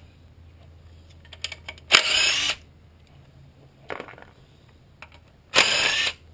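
A power tool on a socket extension running in short bursts of about half a second, twice, with a brief weaker burst in between, as it loosens the oil pan bolts on a VQ35DE engine. Small clicks of the tool and socket fall between the bursts.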